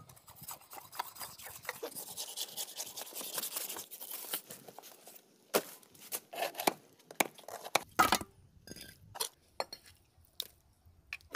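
A knife slicing through a ray's skin and flesh with a hissing, tearing scrape for the first few seconds. Then a cleaver chopping the ray meat into chunks on a wooden chopping block, in sharp separate knocks.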